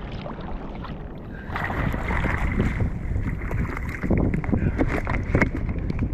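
Wind rumbling on the microphone on a kayak at sea. From about a second and a half in, a hiss of water comes in, with irregular knocks and clicks as a just-landed fish is handled on the kayak.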